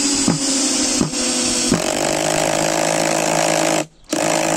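DeWalt cordless drill/driver running as it drives a long screw into very hard wood. Its motor tone drops and gets rougher about 1.7 s in as the screw loads it, then it stops shortly before the end and starts again briefly. The screw can no longer go in and the drill's clutch slips.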